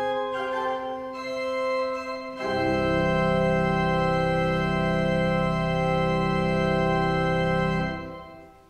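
Organ playing the last phrase of a hymn. A few seconds in, it settles on a long held final chord with a deep bass, which dies away near the end.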